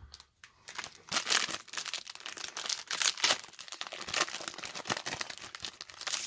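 Foil trading-card booster pack wrapper being torn open and crinkled by hand, an irregular run of crackling and tearing that starts about a second in.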